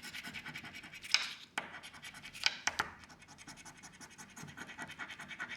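A scratch-off lottery ticket being scratched, in quick back-and-forth strokes of several a second, with a few sharper, louder scrapes about one to three seconds in.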